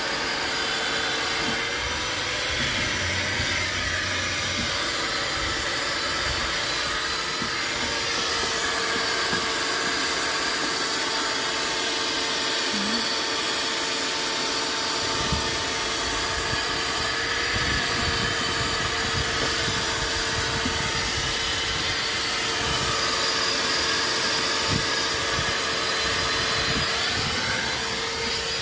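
Shop vacuum running steadily as its hose nozzle is worked over a car's door panel and floor carpet. Its motor whine shifts slightly in pitch now and then, and there are a few small low knocks.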